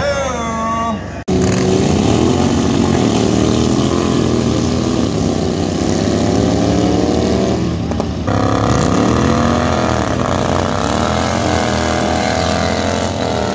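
Engines of racing lawn tractors revving hard, two engines at once, their pitch climbing and dropping as they accelerate down the strip. The sound cuts out abruptly about a second in, then comes back.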